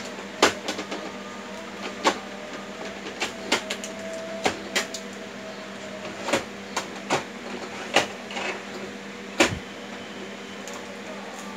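Irregular sharp plastic clicks and knocks as the hard plastic lid and body of a new Epson L565 ink-tank printer are handled, over a steady low hum.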